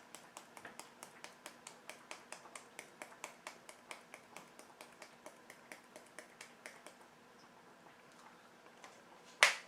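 Cinnamon being shaken or tapped out of a spice container over the pot of pears: light, even taps about four a second for several seconds. It ends in one sharp knock.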